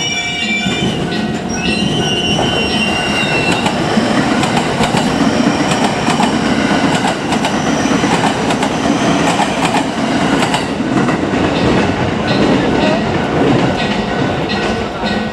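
JR Hanwa Line electric train passing over a level crossing. The wheels squeal high for about the first three seconds, then comes a steady rumble with the wheels clacking over rail joints.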